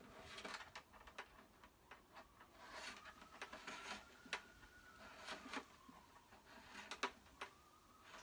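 Faint, scattered clicks and light rustling of electrical wire and plastic being handled in a Jeep Wrangler's tailgate, a few clicks a little sharper than the rest. Under them is a faint tone that slowly rises and falls.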